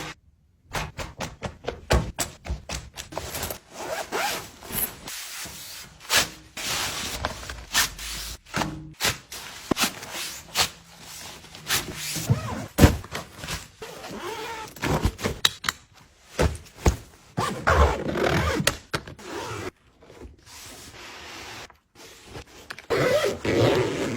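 Fabric luggage packing cubes being handled: zippers running, fabric rustling and scraping, and soft thunks as items are put in and set down, in quick irregular bursts.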